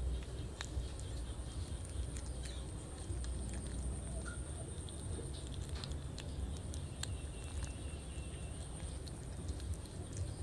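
A kitten chewing small boiled fish, with many short, irregular wet clicks and smacks from its mouth. A steady low rumble and a faint, steady high whine run underneath.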